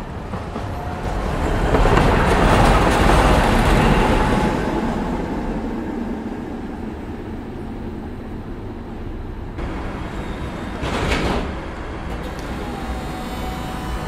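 Streetcar running along its tracks: motor and wheel noise that swells to its loudest a few seconds in and then settles to a steady run, with a short rush of noise about eleven seconds in.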